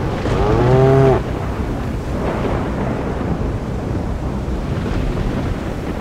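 A cow moos once, a single call about a second long near the start, over a steady rushing rain-and-storm background that continues after it.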